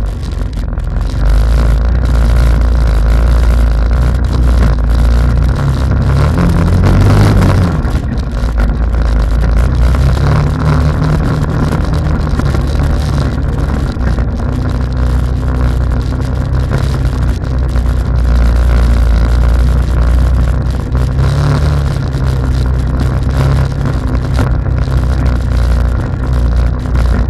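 Quad bike (ATV) engine heard from on board, running steadily under load and revving up and easing off several times.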